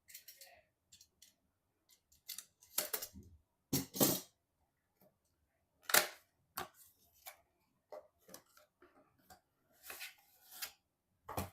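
Irregular clicks, taps and short rustles of hands handling computer parts and their packaging, with the loudest knocks about three, four and six seconds in.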